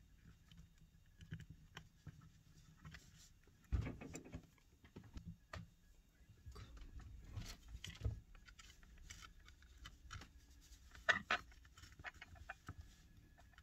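Plastic pry tools and a pick clicking, tapping and scraping faintly against the glued screen edge of an iPad Mini as the screen is pried loose. There is a soft thump about four seconds in and a sharper cluster of clicks about eleven seconds in.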